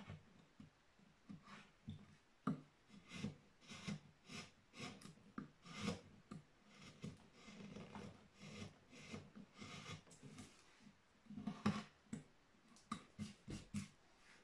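Hand carving chisel cutting a wooden relief in a quick, uneven series of short scraping strokes, about one or two a second, with a couple of louder cuts around six and twelve seconds in.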